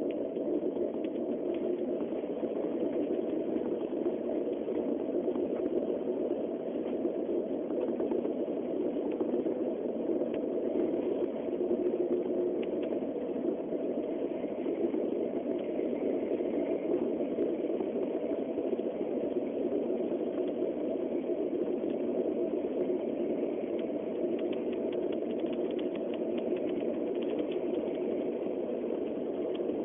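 Steady running noise of a Shinkansen bullet train at speed, heard inside the passenger cabin: an even, unchanging rumble with a few faint ticks near the end.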